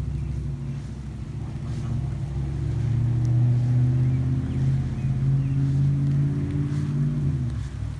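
A motor engine's low, steady hum that grows louder through the middle and fades away near the end.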